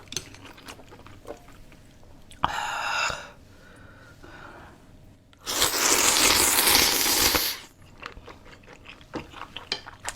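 Close-up eating sounds from a person chewing food: soft scattered chewing clicks and crunches. About two and a half seconds in there is a short burst of noise, and around the middle a much louder rush of noise lasting about two seconds.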